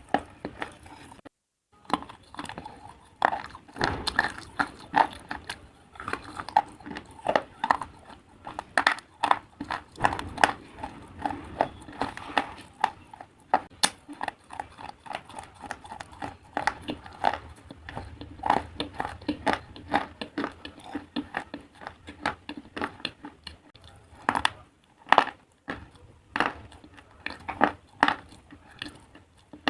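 Pieces of slate being bitten and chewed close to the microphone: many sharp, irregular crunches and cracks, with a short silent break about a second and a half in.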